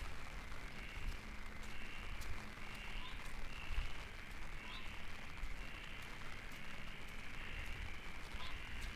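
An animal calling: a short call repeats about every three-quarters of a second over a steady hiss, with a few faint rising chirps.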